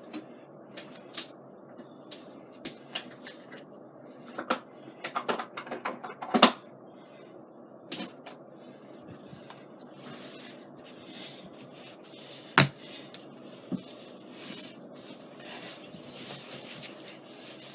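Someone rummaging among craft supplies: scattered clicks and knocks of small items and containers being picked up and set down, with a burst of clatter about five seconds in and a single sharp knock past the middle.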